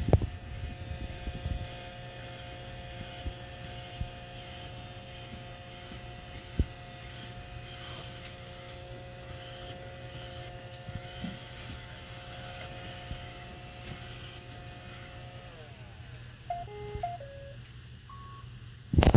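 Roomba robot vacuum running on a Ryobi 18V drill battery: a steady motor hum with two whining tones, which wind down about fifteen seconds in, followed by a short tune of electronic beeps at several pitches. A loud knock near the end.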